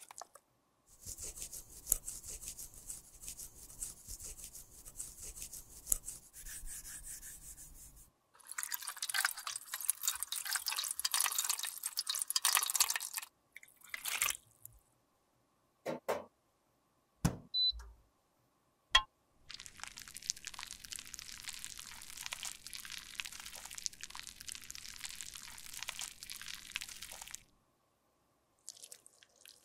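Close-miked sounds of makeup being worked with tools: three long stretches of crackly, scratchy noise, with a few sharp single clicks in the pauses between them.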